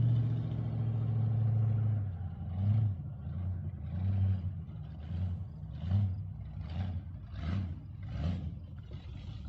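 Camaro's big-block Chevy V8 running steadily, then from about two seconds in its note rises and falls in short pulses roughly once a second.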